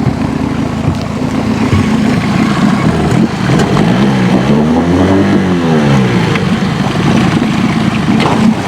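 Boat motor running steadily at idle while it warms up before heading out on the river.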